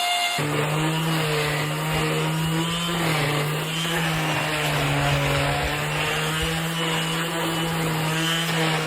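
Electric router running steadily while its bit cuts a profile into a wooden fence post. The motor hum shifts abruptly about half a second in and winds down near the end. The bit is a little blunt, leaving friction burns on the wood.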